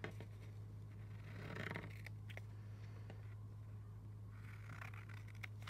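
Scissors cutting through folded cartridge paper: faint snipping and crunching strokes with small clicks of the blades, over a steady low hum.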